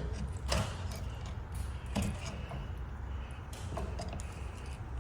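A few short, light knocks and scrapes of a hand tool prodding around inside an opened drywall ceiling, over a steady low hum.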